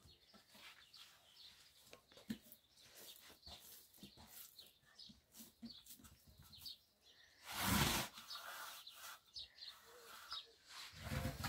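Hands pressing and working a soft bread dough in a large aluminium basin, with faint soft pats and taps, while small birds chirp faintly in the background. About two-thirds through comes one short, loud rustling scrape.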